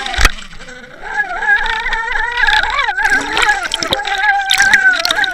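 Underwater sound picked up by a towed fishing camera: water rushing past the housing, with the boat's motor heard through the water as a steady, wavering drone. A sharp knock comes just as the camera plunges under at the start.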